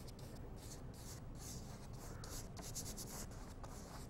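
Paintbrush rubbing across stretched canvas in short, irregular strokes, about two a second, laying on oil paint thinned with medium to a runny consistency.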